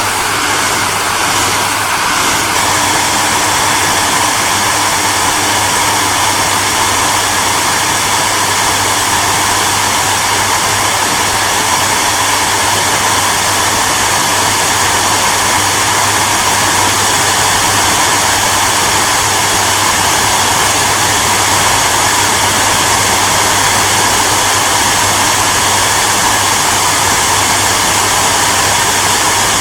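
Hair dryer running steadily: an even rush of blown air over a low, constant motor hum.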